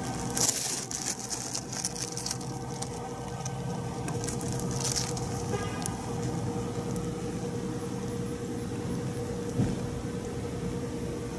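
A steady low mechanical hum with a faint steady tone, broken by brief rustling noises about half a second and five seconds in and a small thump near the end.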